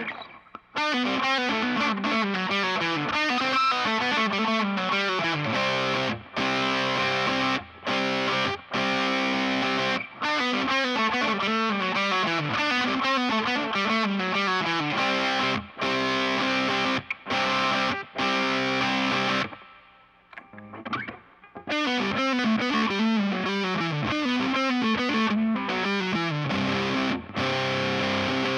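Electric guitar played through overdrive, with a set of Seymour Duncan Antiquity pickups swapped between positions (neck pickup in the bridge, bridge pickup in the neck): distorted phrases with repeated descending note runs, pausing briefly about twenty seconds in.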